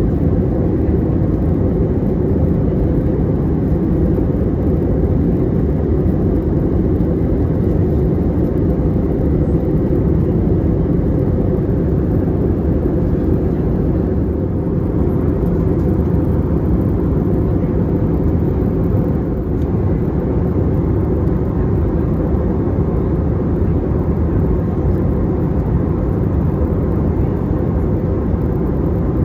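Steady low drone of a jet airliner's engines and airflow, heard inside the passenger cabin in flight.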